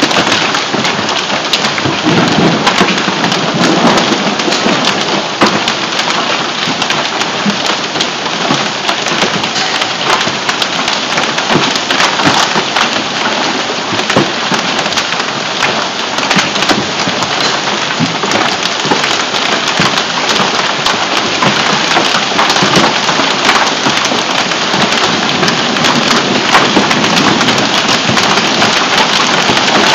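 Heavy hail and rain falling onto a lawn, a concrete walkway and a house: a loud, steady hiss of rain with many sharp ticks of hailstones striking.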